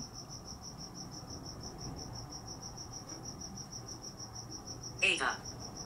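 A cricket chirping steadily, about four to five even chirps a second.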